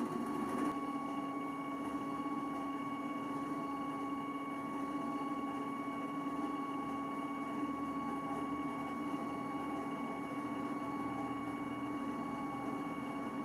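Steady whine of the stepper motor turning a 3D zoetrope's drums, a few fixed tones held over a low hum.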